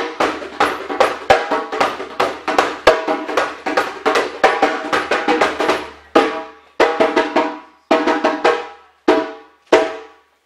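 Hand drum struck with the hands in a fast, ringing rhythm, then slowing to single strokes about twice a second in the second half.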